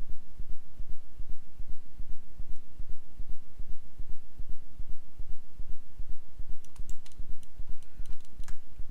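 Low throbbing hum pulsing about three times a second, with a few sharp computer mouse and keyboard clicks near the end.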